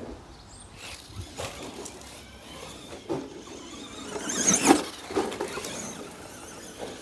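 Stock Tamiya electric RC cars running on 2S LiPo over a dirt track, motor whine and tyres scrabbling on dirt, with scattered light knocks. The loudest moment, a sharp high-pitched burst, comes about four and a half seconds in as a car passes close.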